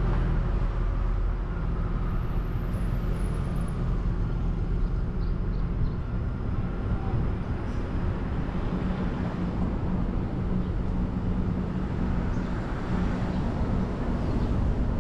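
Car driving along a road: a steady low engine hum with tyre and road noise.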